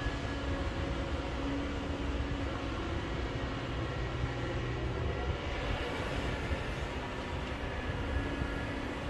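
Kobelco hydraulic excavator's diesel engine running steadily while the boom and arm swing, a continuous low drone with no knocks or impacts.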